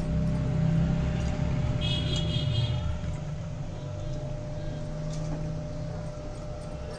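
Basmati rice being tipped into a pot of boiling masala water and stirred with a metal slotted spatula, over a steady low rumble that is louder for the first three seconds and then eases. A brief high ringing comes about two seconds in.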